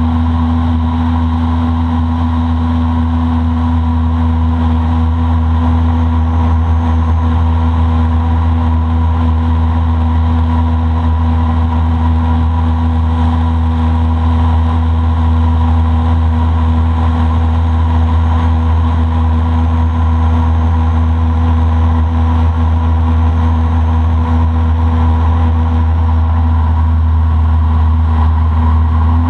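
Boat motor running loud and steady at a constant cruising speed, a low, unchanging engine drone.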